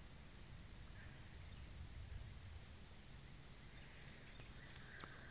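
Faint outdoor ambience: a low rumble of wind on the microphone and a steady high whine, with a few faint chirps and clicks near the end.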